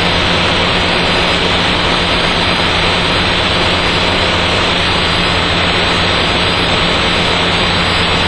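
Steady in-flight drone of a homebuilt Dyke Delta's Mazda rotary engine and rushing air, picked up through the aircraft's intercom: an even hiss over a constant low hum.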